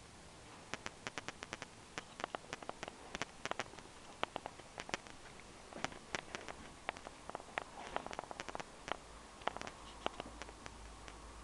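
An irregular run of sharp clicks and taps, often several a second, starting about a second in and stopping near the end.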